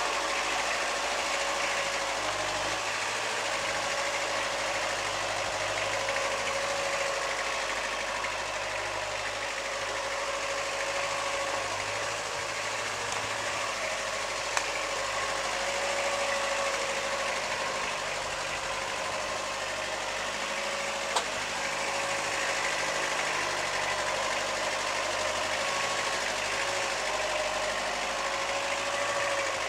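Mini tractor's engine running steadily as it pulls a trolley loaded with bricks. Two short sharp clicks, one about halfway through and one about two-thirds of the way.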